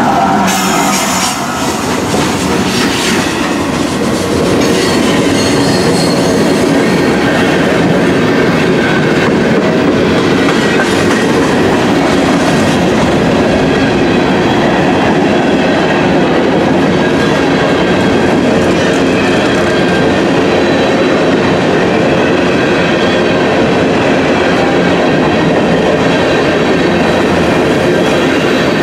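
Freight train passing at close range: the last locomotive goes by at the start, then open-top gondola cars roll past with a loud, steady rumble of steel wheels on rail, a clickety-clack over the rail joints and a faint wheel squeal several seconds in.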